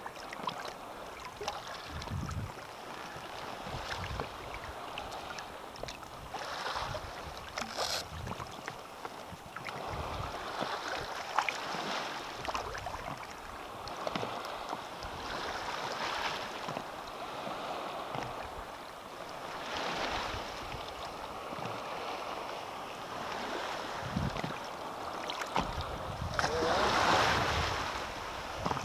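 Shallow seawater lapping and sloshing around a wading angler as he holds a sea trout in the water by hand, with small splashes and light wind on the microphone; the water noise swells louder near the end.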